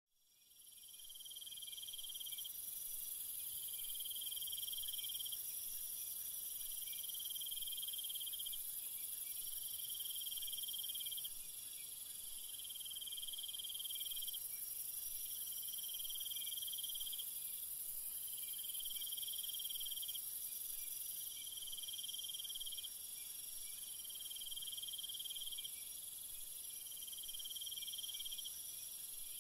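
Insect chorus of crickets: a steady high-pitched shrilling with a lower trill that repeats in bursts of about a second and a half, every two to three seconds. It fades in over the first second or two.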